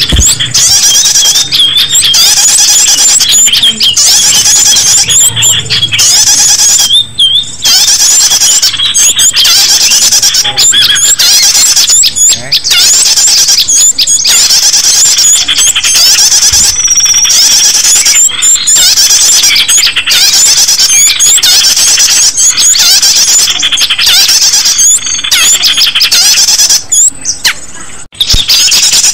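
Loud, dense chorus of high-pitched small-bird calls, squeaks and chirps overlapping almost without pause: a bird-trapping lure call (suara pikat) meant to draw small birds in.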